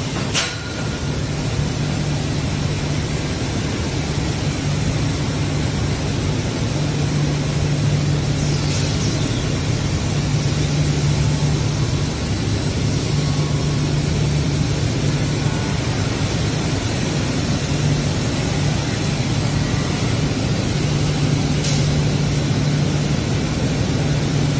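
Steady factory machinery noise from a stainless steel tube production line, with a low hum that comes and goes every few seconds.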